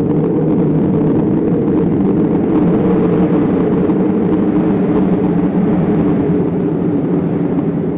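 Added wind sound effect: a loud, steady, deep rushing rumble, meant to suggest a descent through the atmosphere. It swells up at the start and begins to ease off near the end.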